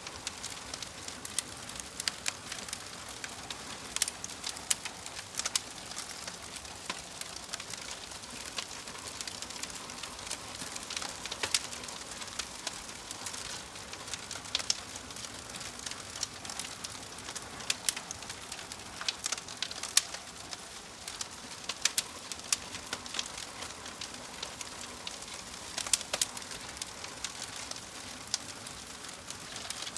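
Wood logs burning in a fireplace: a steady soft hiss with frequent sharp, irregular crackles and pops.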